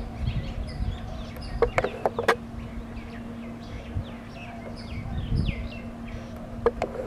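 Low, steady engine drone of a distant pair of ALCo diesel locomotives approaching, with birds calling over it in short repeated chirps. A few sharp clicks come about two seconds in.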